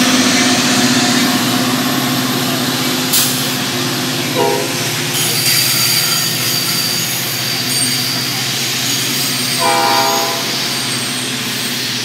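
Metra commuter train rolling past on the rails, a steady running noise, with two short blasts of the locomotive horn about four and a half and ten seconds in, the second the stronger. A sharp click sounds about three seconds in.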